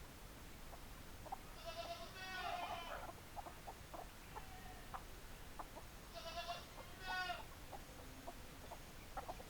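Backyard chickens calling: a drawn-out call from about a second and a half in, then two shorter calls close together around six to seven seconds. Faint scattered ticks sound between the calls.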